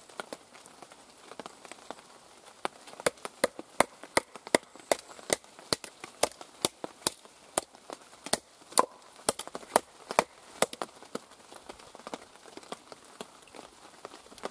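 A wooden baton knocking on the spine of a Mora Robust knife, driving the blade down through a small piece of wood to split it. There are sharp, separate strikes, a few at first and then about two a second from about three seconds in, easing off near the end.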